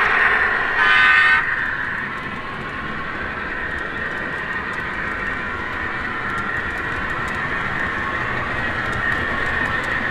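Model diesel locomotive's onboard sound system blowing its horn, with a last short blast that cuts off about a second and a half in. After that the model runs on steadily, its engine sound playing from the speaker as the wheels roll on the track.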